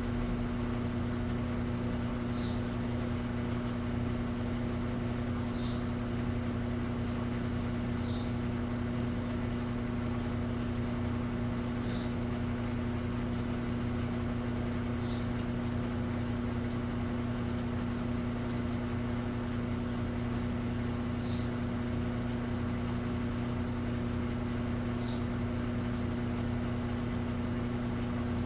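Electrolux Essential Care 11 kg washing machine running with a steady electric hum, on an even tone. Faint short high chirps recur every few seconds.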